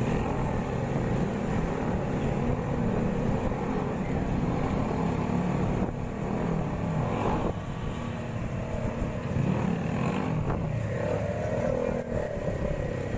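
Several motorcycle engines running steadily as the bikes ride along together, heard up close from a moving motorcycle.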